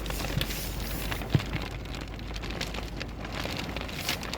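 Small hail mixed with snow falling, the ice pellets ticking irregularly on surfaces over a steady hiss, with one sharper knock about a second and a half in.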